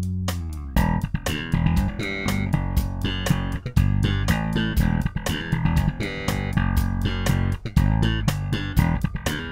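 Unaccompanied five-string electric bass strung with Markbass Advanced steel strings, recorded direct. A held low note rings and fades, then just under a second in the playing turns busy and rhythmic, with many sharp, percussive note attacks.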